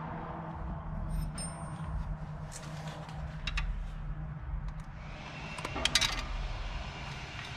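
Small clicks and clinks of a flat-head screwdriver prying at the plastic air-line fitting on top of a rear air spring, with a few sharper clicks about six seconds in. A steady low hum runs underneath.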